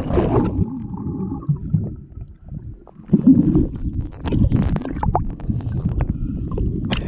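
Muffled rumbling and gurgling of seawater heard with the microphone underwater, from a swimmer diving under a wave. There is a short lull about two and a half seconds in, then the churning swells up again.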